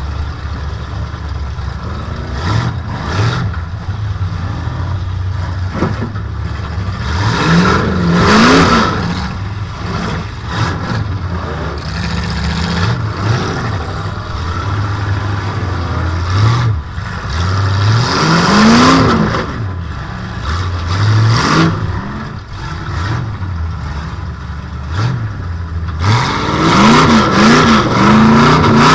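Demolition derby car's swapped-in engine, heard from inside the cockpit, idling and being revved in short blips. There are bigger revs about 8 and 19 seconds in, and a run of quick revs near the end.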